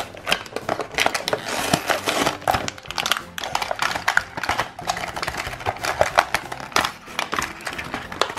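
Clear plastic blister packaging crinkling and crackling with irregular clicks as a toy five-pack is pulled open and handled by hand, over background music.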